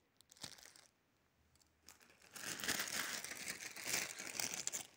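Clear plastic packaging crinkling as it is handled: a couple of brief rustles near the start, then a run of continuous crinkling from a little under halfway through to the end.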